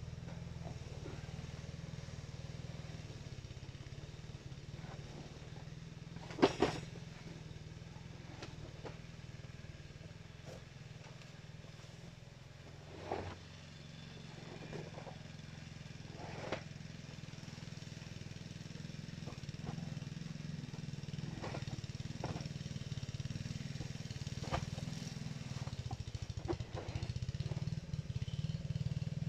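A wet moose hide being handled and spread over a metal bed-spring drying frame, giving scattered knocks and rustles; the sharpest knock comes about six and a half seconds in. Under it runs a steady low mechanical hum like a motor, which grows slightly louder toward the end.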